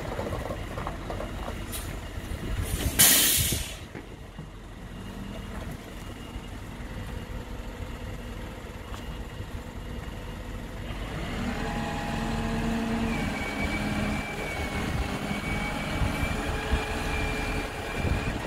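Diesel engine of an Isuzu FTR hook-lift truck idling. About three seconds in, a short, loud burst of air hissing like an air brake being set. From about eleven seconds in, a steady high whine joins the engine.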